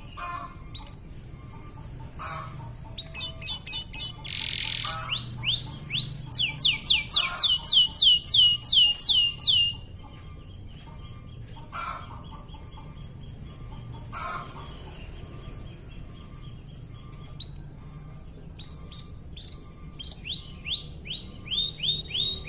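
Canary singing: rolling trills of quick, repeated down-slurred notes, in two long bursts with a quieter stretch between.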